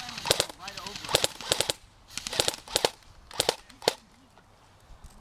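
Airsoft guns firing in short bursts of rapid sharp snaps, four or five bursts, then stopping about four seconds in.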